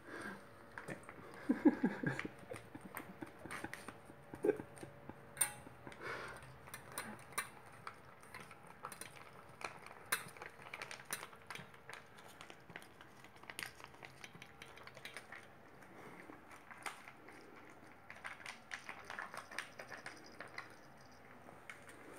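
Maine Coon cat eating wet cat food from a metal bowl: soft, irregular clicks and smacks of chewing and lapping. Near the start, the crinkle of a plastic food pouch being opened and squeezed out.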